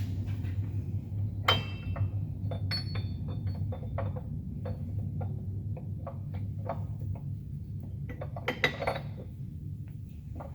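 Metal clinks and knocks of a heavy transmission countershaft and its gears being eased into the steel case of an Eaton Fuller FRO-16210C, a tight fit. A sharp ringing clank comes about one and a half seconds in, followed by a scatter of lighter clinks.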